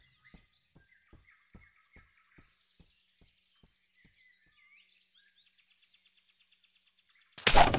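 Quiet forest ambience with faint bird chirps and a run of soft, evenly spaced taps, about two and a half a second, that fade away. Near the end a sudden loud burst of noise cuts in.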